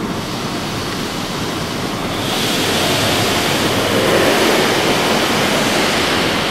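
Car wash water spray drumming on a car's windshield and body, heard from inside the car; the spray gets louder and harsher about two seconds in as water sheets over the glass.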